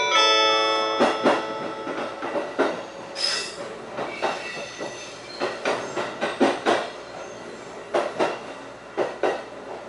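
Wheels of a JR 651 series limited express clattering over rail joints and turnouts, heard from inside the carriage: sharp knocks, often in pairs, over a low running rumble. The last notes of an onboard chime melody ring out and fade in the first half second.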